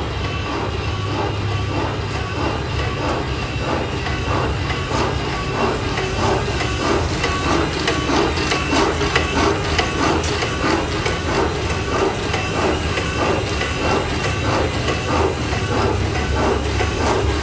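Working steam-engine prop running: its crankshaft, aluminium connecting rods and plywood flywheel turn with a steady rhythmic clatter of several knocks a second over a low, even hum.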